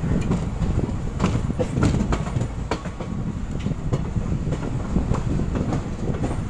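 Passenger coach wheels rumbling over the track, with irregular clattering knocks as they cross rail joints and points, heard close up from the coach's open doorway.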